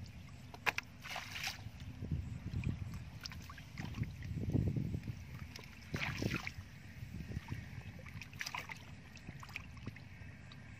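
Shallow muddy water sloshing and splashing as people wade in it and grope for fish by hand, with a few sharper splashes, over a low uneven rumble.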